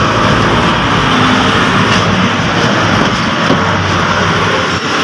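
Toyota Revo diesel engine running steadily at idle.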